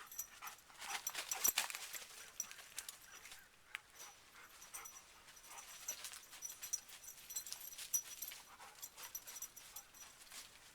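A labrador panting as it walks, with irregular taps of footsteps on a wooden boardwalk.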